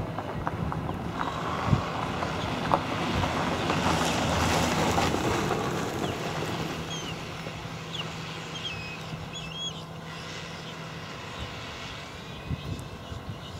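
A steady low engine hum under a rushing noise that swells and fades, peaking about four to five seconds in, with two sharp knocks early and a few short high chirps midway; the hum cuts out a little before the end.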